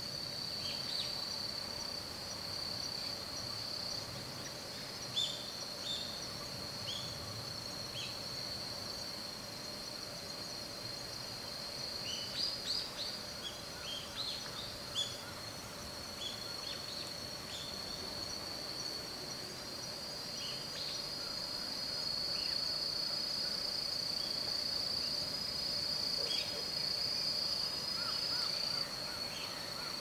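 Autumn insect chorus: a steady, unbroken high trill, with a fainter low steady tone beneath it. Short, high, falling chirps are scattered through, with a small cluster of them near the middle.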